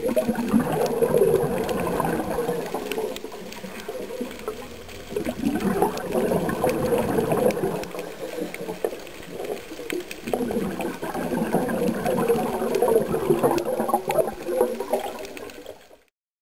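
Scuba diver's exhaled bubbles from the regulator, heard underwater: three long bubbling gurgles of about five seconds each, with short pauses between them for the in-breath. The sound cuts off just before the end.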